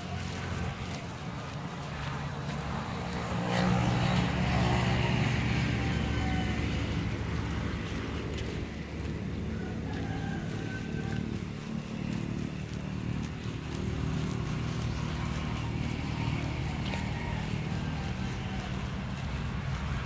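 An engine running steadily, louder for a couple of seconds about four seconds in.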